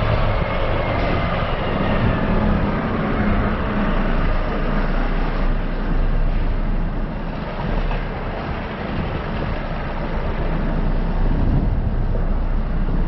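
Steady vehicle noise, a low rumble with a hiss over it, dipping slightly about eight seconds in.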